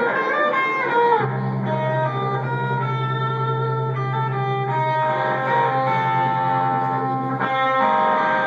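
Live rock band playing, electric guitars picking note lines over a low note held from about a second in until near the end.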